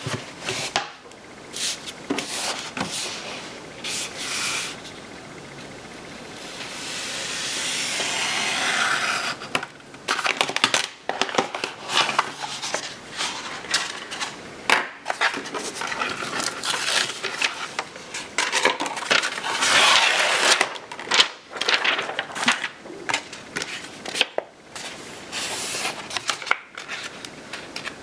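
Infusible ink transfer sheet being handled on a plastic cutting mat: rustling, rubbing and sliding, with many small taps and clicks. About seven to ten seconds in, a longer sliding rub.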